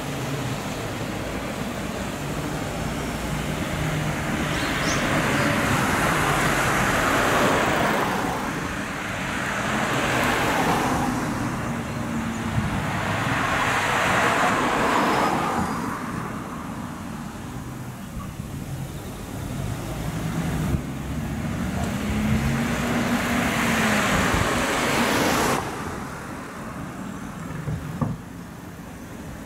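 Road traffic: several cars pass one after another, each a rush of tyre and engine noise that swells and fades, some with an engine note that rises and then drops as they go by. The last pass cuts off suddenly near the end, leaving a quieter background.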